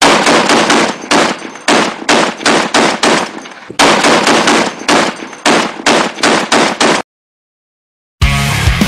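Bursts of rapid gunfire, one shot after another, each ringing out briefly, for about seven seconds. It stops dead, and after a second of silence heavy rock music starts near the end.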